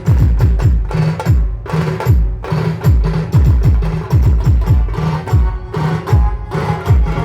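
Band music driven by fast percussion, with deep bass drum hits that drop in pitch, several in quick succession, in repeated runs separated by short breaks.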